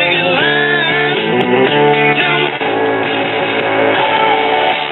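A music broadcast with guitar playing from the speaker of a 1987 GE AM/FM portable radio as it is tuned across the band.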